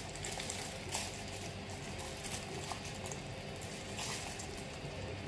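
Steady low hiss of room tone, with a faint click about a second in and another about four seconds in.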